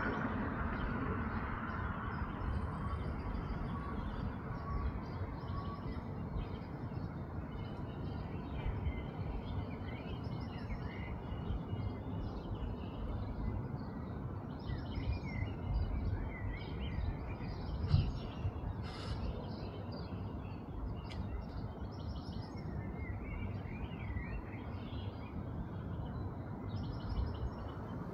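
Small songbirds chirping and calling in short, scattered bursts over a steady low outdoor rumble, with one sharp click about two-thirds of the way through.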